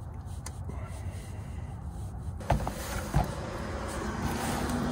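Two knocks, about two and a half and three seconds in, as a plastic oil catch pan and tools are handled under a car, over a low steady rumble. After the first knock a rush of noise rises and holds to the end.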